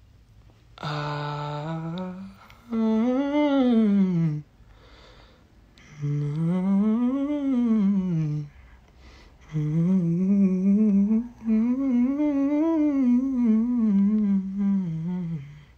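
A young man humming a wordless tune with his lips closed, in four phrases that rise and fall in pitch, the last one the longest and wavering up and down.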